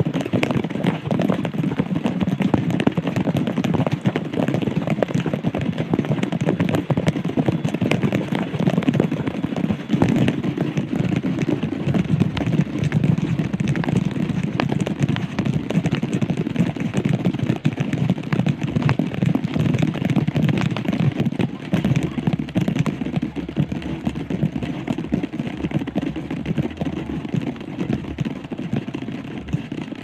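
Steady rain pattering on forest leaves and ground: a dense, even hiss full of small crackling drop impacts.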